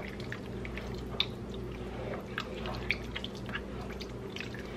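Plastic spatula stirring thick cabbage soup in a metal pot: soft wet squishing with light, scattered clicks against the pan, over a steady low hum.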